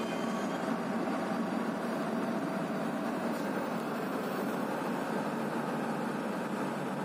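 Steady running noise inside a train's generator van as the train rolls along: the van's diesel generator set and the wheels on the rails, even and unchanging.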